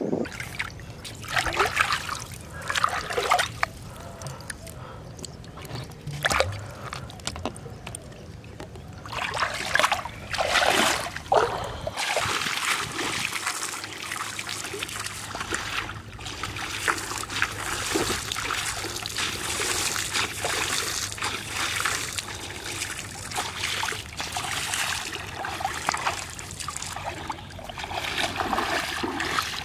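Shallow river water splashing and sloshing as a person wades through it: separate splashes in the first twelve seconds, then a more continuous wash of water as she walks through the shallows.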